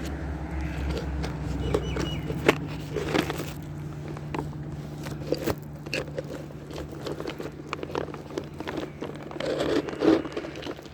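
Cats crunching dry kibble: many small, irregular crunches and clicks over a steady low hum.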